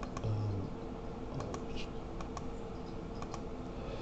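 Scattered, irregular clicks of computer keys, about eight in all, over a faint steady hum, with a short low hum just after the start.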